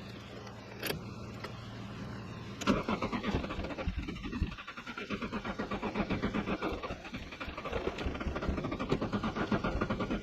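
Nissan 240SX engine being cranked on its starter from about three seconds in: a fast, uneven chugging as it turns over without catching, a hard start on a car with a no-start problem. Before that there is a steady low hum and a single click.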